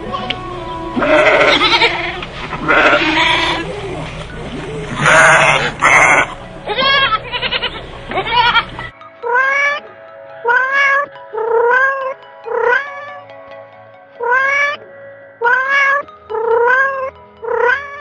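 Sheep bleating, a few loud rough bleats in the first half. Then a cat meowing over and over, about one meow a second, each rising in pitch and then levelling off.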